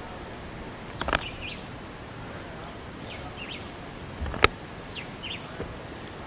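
Small birds chirping in short repeated bursts every couple of seconds over a steady hiss, with two sharp knocks, the louder one about four seconds in.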